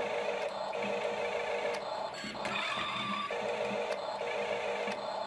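Toy RC Fendt tractor's small electric motor and gearbox whining as it strains to pull a heavy load. The whine cuts out briefly several times and then picks up again.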